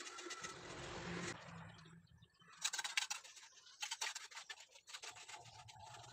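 Scratching and scraping of wet mortar being worked under a squat-toilet pan, with a cluster of quick clicks and scrapes from a trowel or the pan's edge in the middle. A low engine hum starts near the end.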